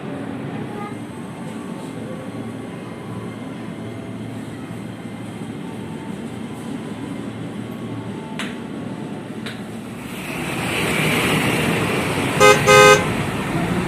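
Train running with a steady rumble that grows louder about ten seconds in, then two short horn toots near the end.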